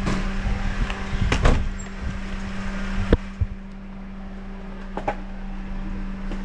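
A few sharp knocks and clatters of a Onewheel electric board and a handheld camera being handled, the loudest about a second and a half in, over a steady low hum.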